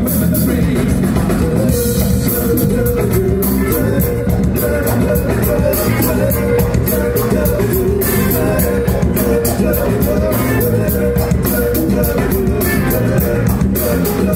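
Acid-jazz band playing live over a festival PA: a steady drum-kit beat, bass guitar and keyboards, with a vocalist singing over them.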